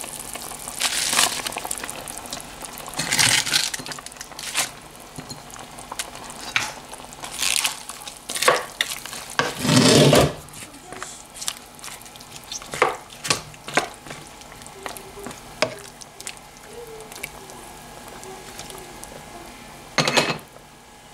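A spoon or ladle knocking and scraping in a pot of simmering chicken tinola as bok choy is stirred in, a run of sharp clinks with a few louder rustling splashes.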